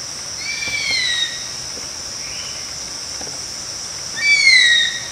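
Steady high-pitched insect drone with a bird's whistled call, falling in pitch, about half a second in and again near the end.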